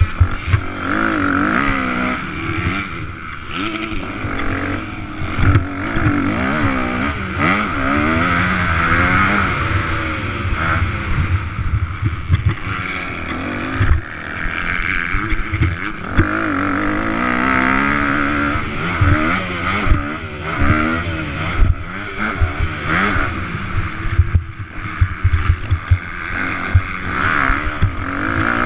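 Motocross bike engine heard from on board, revving up and down over and over as the rider accelerates and shuts off around the track, with frequent short knocks as the bike bounces over the ruts.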